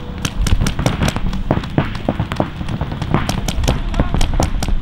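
Paintball markers firing across the field: sharp pops in irregular runs, about three or four a second, some close and loud, others fainter and further off.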